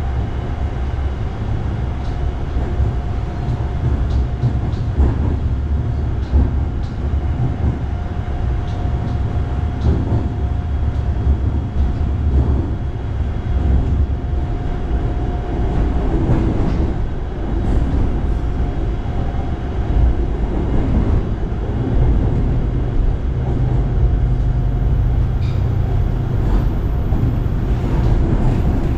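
Hitachi AT100 electric multiple unit of Bangkok's SRT Red Line running toward its terminal, heard from inside the passenger car: a steady low rumble, with a thin steady whine that stops about halfway through.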